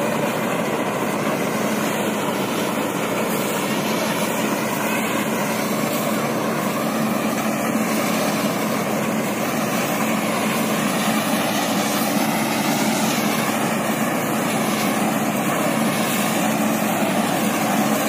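Balkar combine harvester running steadily while harvesting rice: a constant diesel engine drone mixed with the whir of its cutting and threshing machinery.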